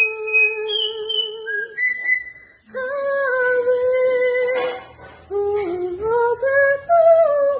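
A slow melody of long held notes with a slight waver, each held for a second or two, with a short break about two seconds in.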